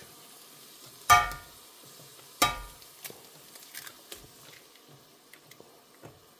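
An egg knocked sharply twice against a frying pan, about a second apart, the pan ringing briefly with each knock, then cracked open into the pan. Faint sizzling of eggs and steak frying runs underneath, with small clicks.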